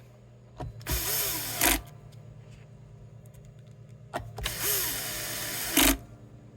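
Bosch cordless drill/driver run twice in short bursts, driving screws, its motor whine rising and falling in pitch with each run.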